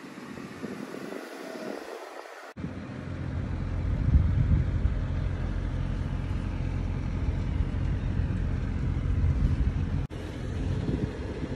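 An engine idling with a steady low rumble. It starts abruptly about two and a half seconds in, after a quieter stretch of hiss.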